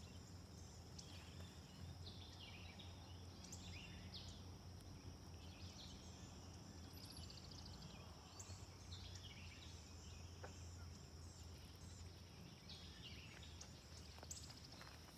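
Faint outdoor ambience: a steady high-pitched insect drone with short, falling bird chirps every few seconds.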